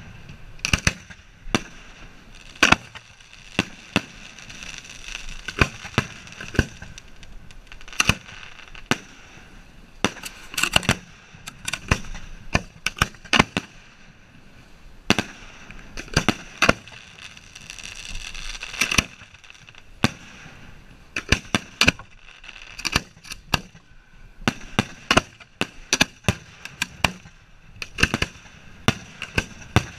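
Fireworks aerial shells fired from racks of mortar tubes, hand-lit with a road flare: a quick, uneven run of sharp bangs, some single and some in close clusters, over a steady hiss.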